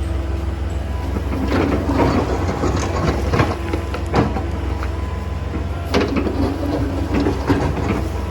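Excavator's diesel engine running steadily, with stones clattering and knocking against the steel bucket in two irregular spells: from about one and a half to four and a half seconds in, and again from about six to eight seconds.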